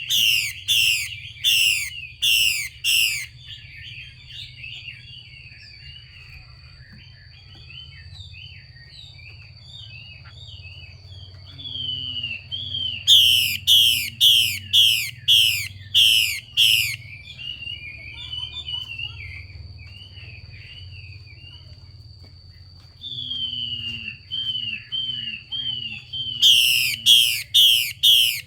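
Female Chinese hwamei giving its harsh 'xùy' call: three bursts of loud notes repeated about two a second, at the start, midway and near the end, with softer chattering and twittering between them. A faint steady high whine and a low hum run beneath.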